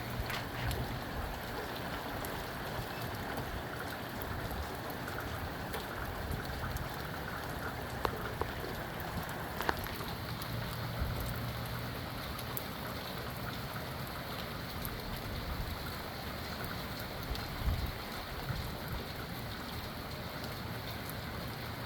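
Steady rain falling, with scattered sharper drop hits and, now and then, a brief low rumble of wind gusting.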